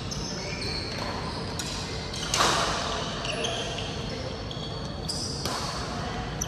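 Badminton play echoing in a large indoor hall: sharp racket-on-shuttlecock strikes, the loudest about two and a half seconds in and another near five and a half seconds, with short high shoe squeaks on the court floor and faint background voices.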